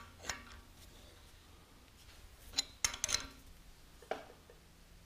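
A few faint metallic clicks and ticks from a hand-turned thread-insert installing tool winding a Helicoil-type insert into a tapped 3/4-inch bolt hole in a tractor's rear-end case. The clicks are scattered, with a small cluster a little past the middle.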